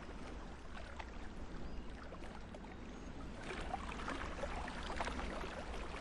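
Water lapping and splashing softly, growing a little fuller from about halfway through.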